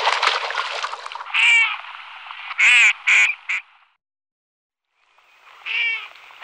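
Northern shoveler ducks calling with short nasal quacks: four in a loose series over about two seconds, then one more near the end after a short silence. A dense crackling noise fills the first second.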